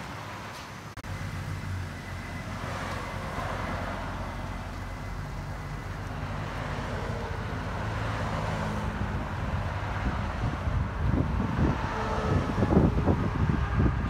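Mercedes C350's 3.5-litre V6 idling steadily through a straight-piped exhaust with the mufflers and resonators deleted and an X-pipe fitted. Wind buffets the microphone in the last few seconds.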